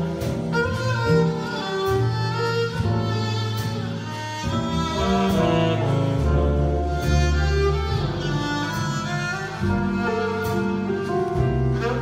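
Small jazz band playing live, with the violin prominent over saxophone and trombone, a double bass line, piano, and drums keeping time with light cymbal strokes.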